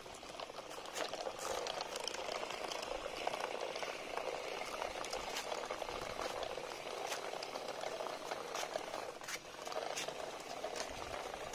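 Homemade RC toy tractor driving across rough concrete: its small geared motor and wheels make a steady gritty crackle with many small clicks, building up in the first second.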